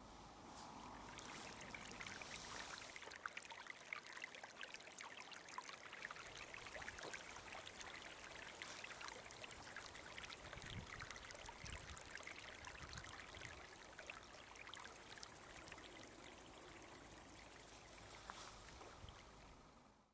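Water trickling in a small stream, faint and crackly. A high-pitched insect trill joins twice, each time for about four seconds.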